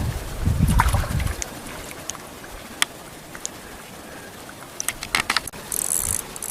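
Low wind rumble on the microphone for the first second or so, then scattered small clicks and knocks of gear being handled, with a short cluster of clicks about five seconds in and a brief hiss near the end.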